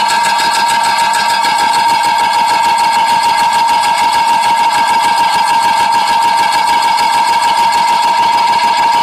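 Leadframe stamping machine running: a steady high whine with a fast, even rattle over it.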